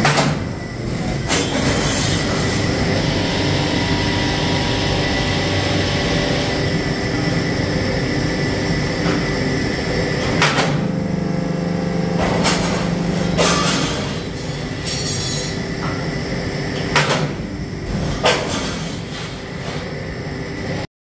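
Haemmerle TS12 hydraulic guillotine shear running, its hydraulic pump motor humming steadily, with several sharp clunks as the machine cycles: a few near the start and more through the second half.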